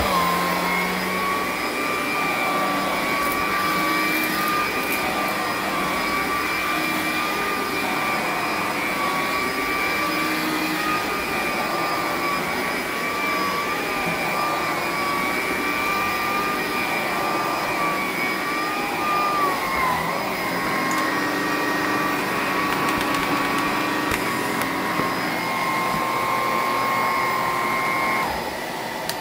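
Electrolux Discovery 3 upright vacuum cleaner running with a steady motor whine over airflow noise; it runs pretty good. The pitch dips briefly about twenty seconds in, and near the end the whine cuts off and the sound fades as the motor winds down.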